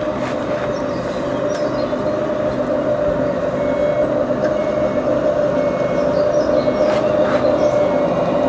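Remote-controlled model road-train truck driving slowly, a steady mechanical drone with a high whine that grows louder as it comes closer. Faint short high beeps sound about once a second midway through.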